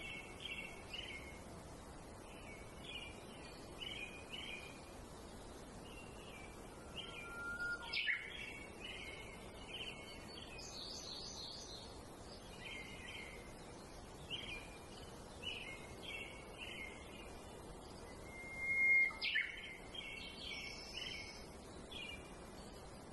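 Small songbirds chirping in short repeated phrases over a steady outdoor hiss. One longer, louder whistled note comes about three-quarters of the way through.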